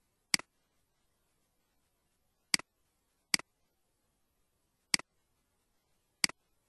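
Computer mouse clicking five times at uneven intervals, each click a sharp tick with a fainter second tick right after it, as the button is pressed and released. Dead silence between the clicks.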